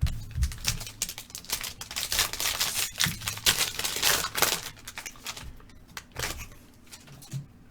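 A trading card pack being opened and its cards handled: a dense run of rapid crinkling and crackling clicks for about five seconds, then fainter rustling.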